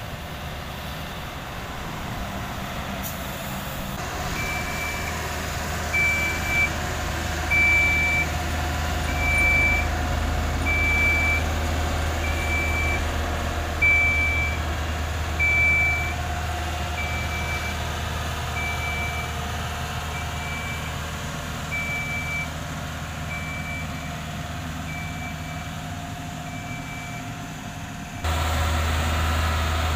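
Double-drum tandem asphalt roller with its diesel engine running in a steady low drone. Its backup alarm sounds short single-pitched beeps about once every one and a half seconds, starting about four seconds in and stopping near the end.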